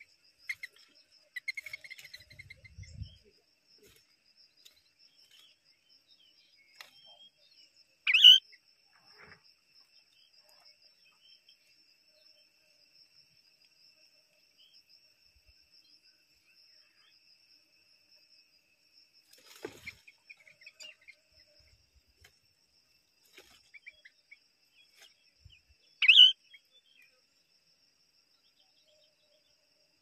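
Bulbul calls at the nest: scattered soft chirps and two loud, sharp, very short calls, one about a quarter of the way in and one near the end, over a faint steady high insect trill.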